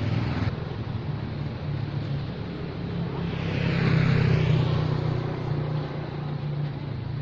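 A motor vehicle's engine running steadily, getting louder as it passes about four seconds in and then fading.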